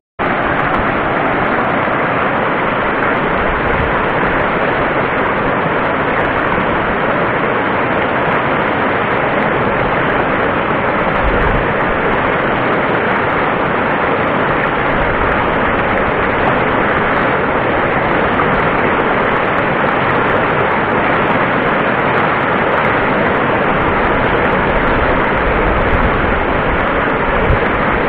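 Mountain stream rushing steadily over boulders in white-water rapids, running high after rain.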